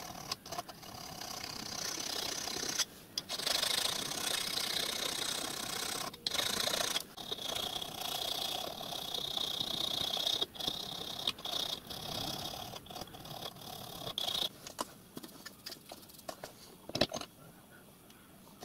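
Slim hand file rasping back and forth over a small brass letter clamped in a steel bench vice, in runs of strokes broken by short pauses. The filing stops about 14 seconds in, and a few light clicks follow as the piece is handled.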